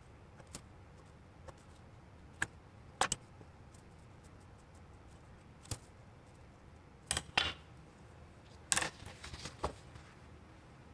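Scattered light taps, clicks and short scrapes of a pen, a steel ruler and paper being handled on a tabletop, spaced irregularly and coming more often in the second half, with quiet room tone between.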